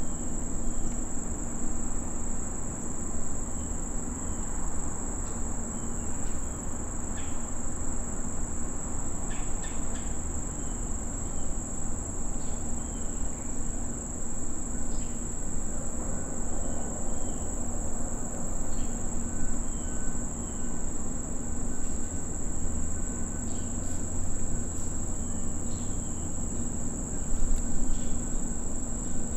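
Steady, unbroken high-pitched chorus of insects over a low background rumble.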